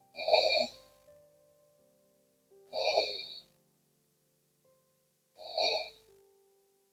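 A sleeping woman snoring: three loud snores, one roughly every two and a half to three seconds, each lasting under a second.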